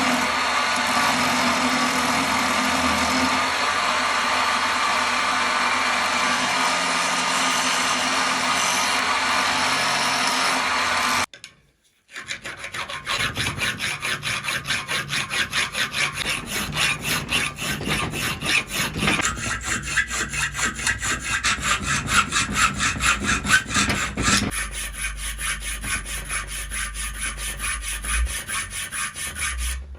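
Metal being worked by hand: rapid, rhythmic back-and-forth abrasive strokes on steel, several a second. This follows a steady, continuous grinding-like noise that cuts off abruptly about eleven seconds in, with a brief silence before the strokes begin.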